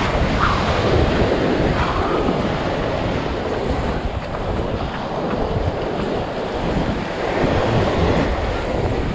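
Wind buffeting the microphone over surf washing up on a sand beach, as a steady rushing noise with a low rumble.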